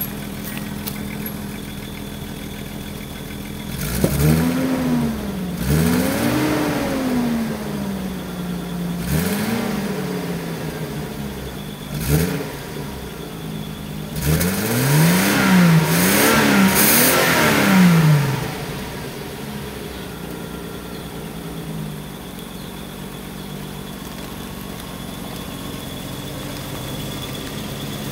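1979 Datsun 280ZX's stock 2.8-litre inline-six idling, then revved up and let fall back several times. Near the middle comes a quick run of short blips before it settles back to a steady idle, through the stock exhaust, which its owner calls tin-can.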